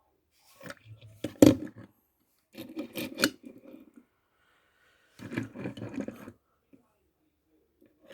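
Die-cast toy cars being handled: three bouts of rubbing and scraping, with one sharp knock about one and a half seconds in.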